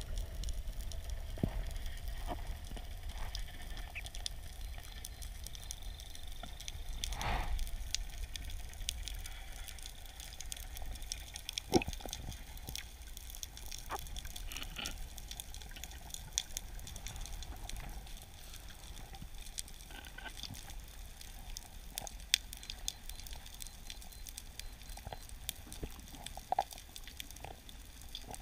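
Underwater ambience on a wreck dive: a steady water hiss with scattered sharp clicks and pops. A low rumble fades out a little past halfway.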